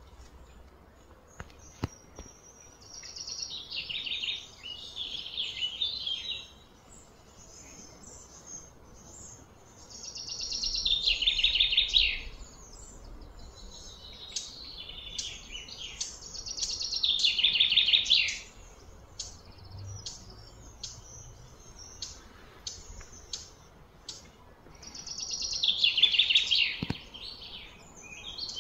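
A bird singing four loud phrases of rapid high notes several seconds apart, each building up and then stopping abruptly.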